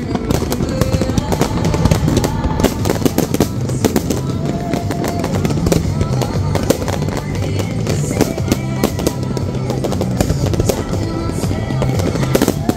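Fireworks display going off in quick succession: a dense run of bangs and crackling bursts with no let-up, with music and a deep bass line playing underneath.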